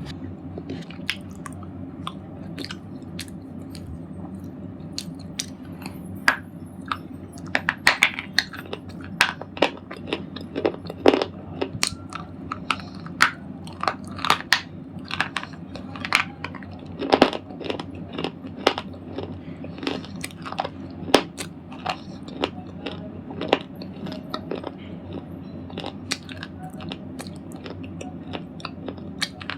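A person biting and chewing a red slate ball: many sharp, irregular crunches, coming thickest through the middle and thinning out near the end, over a faint steady hum.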